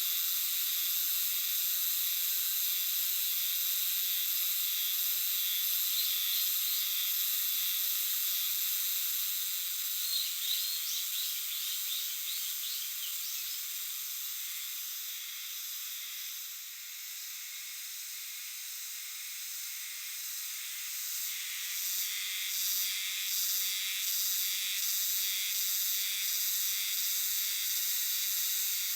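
Chorus of many Euterpnosia chibensis (hime-harusemi) cicadas calling together, a dense, continuous buzzing 'jiwaa jiwaa'. It eases a little past the middle, then swells again and pulses about twice a second. A few short, thin, high chirps sound through it about ten seconds in.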